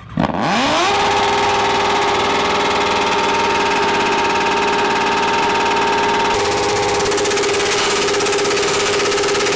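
Big motorcycle engine starting and spinning up within about a second to a high, steady speed, then held there at a constant pitch.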